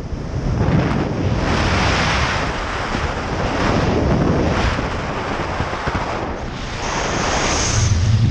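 Wind rushing hard over the camera microphone in a fast speed-flying descent, surging louder and softer every couple of seconds and loudest near the end.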